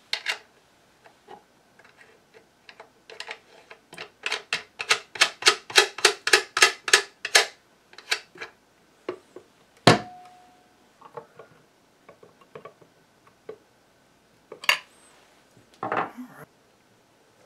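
Small hard clicks and taps of hand work on the binding posts and hardware of a wooden amplifier cabinet. In the middle there is a quick run of clicks at about four a second, then a single sharp knock with a brief ring, and a few more taps and a dull knock near the end.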